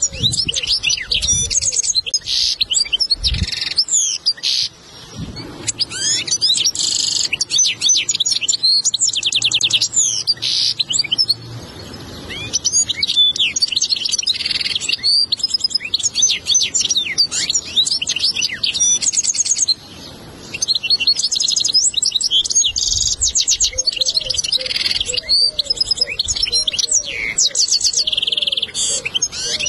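European goldfinch singing a long, continuous song of rapid twittering notes and fast buzzy trills, with a few short breaks. It is a tutor song ('ders sesi') recording played to teach a young goldfinch its song.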